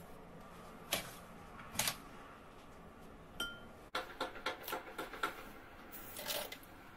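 A metal spoon tapping against a glass measuring jug as granules are spooned in: a couple of light taps and one short ringing clink. Then comes a quick run of small clicks and knocks, with a brief rustle near the end.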